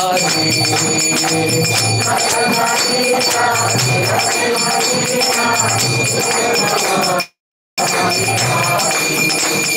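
Devotional kirtan: singing with steady metallic jingling percussion and low drum beats about once a second. The sound cuts out completely for about half a second around seven seconds in.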